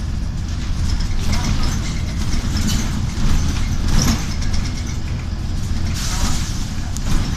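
Inside a Volvo 7000 city bus under way: its Volvo D7C250 six-cylinder diesel engine running with a steady low rumble, a few knocks from the cabin, and a short hiss about six seconds in.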